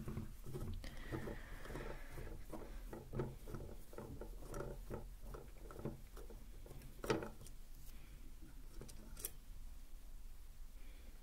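Close-up handling sounds from hands working on a binaural microphone during its battery change: many small taps and clicks with light rubbing, and sharper clicks about seven seconds in and again about nine seconds in.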